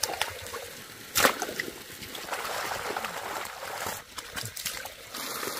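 Water splashing and sloshing, with one sharp, loud splash about a second in.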